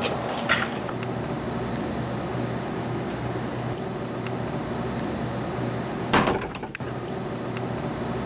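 A metal lever door handle clicks as the door is unlatched and pulled open. About six seconds in, the door swings shut with a thud and a latch click, over a steady low hum.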